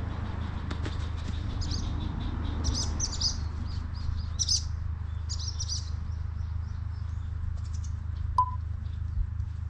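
Wild birds chirping: clusters of short high calls in quick series through the first half, over a steady low background rumble. One short, sharp tone stands out about eight seconds in.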